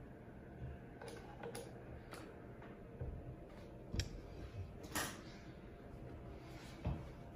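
A handful of faint, scattered clicks and light knocks of small objects being handled, the sharpest about four and five seconds in, over a low steady hum.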